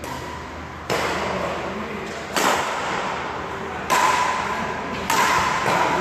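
Badminton rally: four sharp racket strikes on a shuttlecock, roughly one every second and a half, each ringing on in the echo of a large hall.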